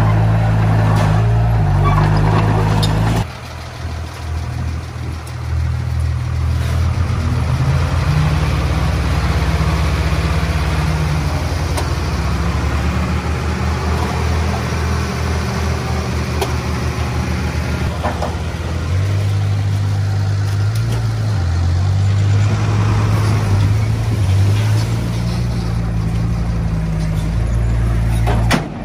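Komatsu D20P crawler dozer's diesel engine working under load, its note stepping up and down in pitch. About three seconds in, the deep rumble drops away suddenly and the sound turns quieter for a moment.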